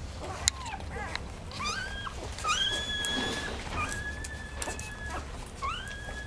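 Dog whining: about four long, high whines, each rising briefly at the start and then held at a steady pitch.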